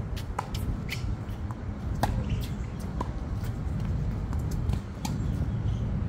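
Tennis rally on a hard court: several sharp pops of the ball coming off racket strings and bouncing on the court, spaced about a second apart, over a steady low rumble.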